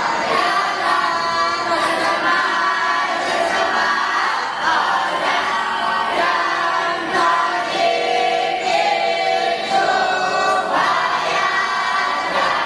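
A large group of young voices singing a chant together in unison, without a break.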